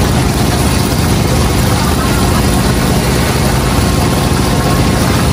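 A steady engine-like hum runs without a break under the sizzle of battered chicken deep-frying in hot oil.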